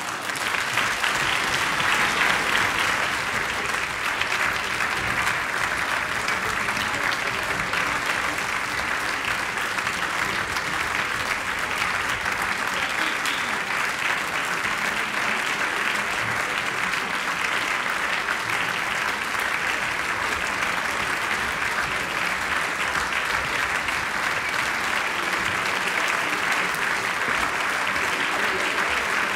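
Audience applauding, a dense, steady clapping that swells in at the start and holds evenly throughout.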